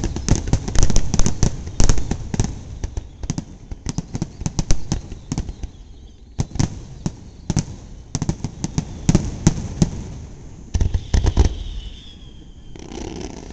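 Aerial fireworks display: a rapid string of bangs and crackles that thins out to scattered booms midway, with a high, slightly falling whistle near the end.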